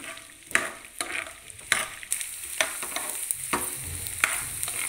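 Edible gum (gond) sizzling in hot ghee as it puffs up in the pan. A steel spoon scrapes and taps the pan about twice a second as it is stirred, and the sizzling grows stronger after about two seconds.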